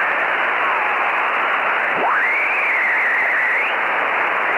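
Shortwave radio static with a heterodyne whistle sliding in pitch, the sound of a receiver being tuned across signals. The whistle falls in the first second, sweeps sharply up about two seconds in, wavers, then climbs once more and stops.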